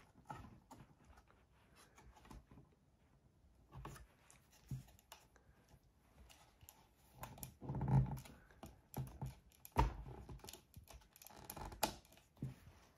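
Scattered light clicks and taps of hands handling a cardboard board book, with a few louder low knocks about eight seconds in and single sharp knocks near ten and twelve seconds.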